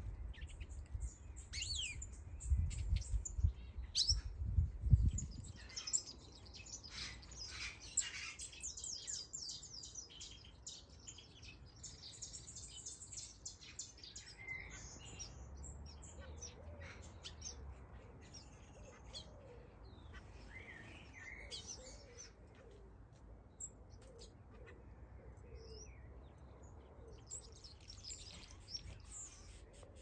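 Many small aviary finches and softbills chirping and singing together, busiest in the first half and thinner later, with a low rumble about two to five seconds in.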